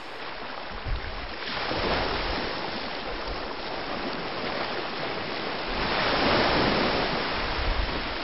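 Ocean surf: waves breaking and washing in a steady rush, swelling louder about two seconds in and again about six seconds in.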